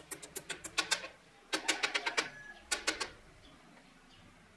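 Rapid metal-on-metal clicking in three short bursts, from a steel cylinder being handled and seated against the steel jaws of a four-jaw lathe chuck.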